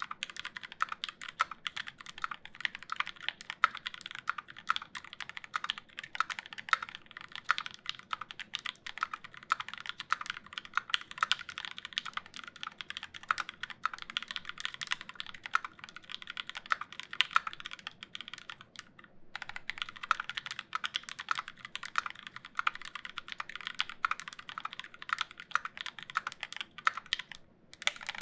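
Continuous fast typing on a Square.O mechanical keyboard with lubed linear switches (C3 Tangerine v2 stems in Gateron Milky housings), a 4 mm aluminium plate and GMK keycaps. It is a dense stream of keystroke clacks, with two short pauses: about two-thirds of the way in and near the end.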